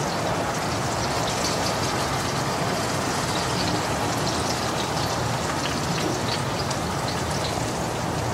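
Plantain slices frying in hot olive oil in a pot: a steady sizzle with many small crackles and pops.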